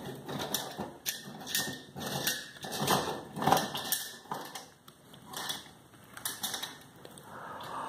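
Light metallic clicks and rattles at an irregular pace as the bonnet assembly is fitted onto a flame safety lamp.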